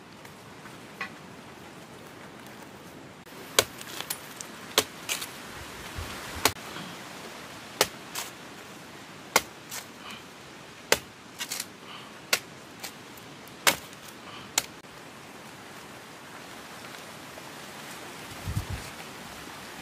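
A blade chopping open a green jelly coconut: about a dozen sharp, short chops at irregular intervals from a few seconds in, stopping about three-quarters of the way through. A dull thump follows near the end.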